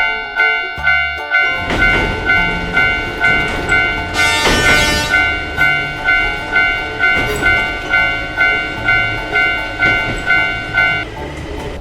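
Japanese railroad crossing warning bell ringing in a steady, even rhythm of about two dings a second, over a low train rumble. A brief whoosh comes about four seconds in, and the bell stops shortly before the end.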